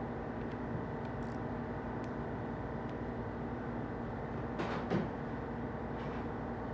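Steady workshop hum with a few light clicks of hand tools, then a short, louder clatter near the middle, as work goes on at an engine during timing-chain assembly.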